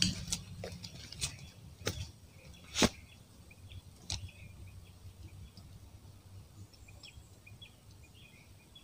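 Fishing rod being cast, a sharp swish at the start, followed by a few separate clicks and knocks over the next four seconds, the loudest about three seconds in. After that, faint high chirps.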